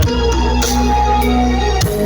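Electronic dance music played very loud through a large outdoor sound-system rig being tested: a heavy, steady bass under held keyboard chords, with a beat striking through it.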